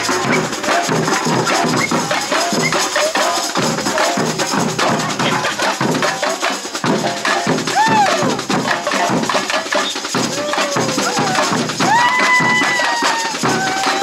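Samba percussion band playing a driving samba rhythm of many drums and small percussion, with a few sliding higher notes over the drumming about eight and twelve seconds in.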